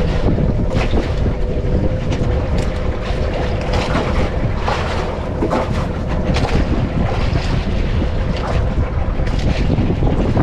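Wind buffeting the microphone over open sea, with waves splashing against the hull of a small outrigger boat and a steady hum underneath.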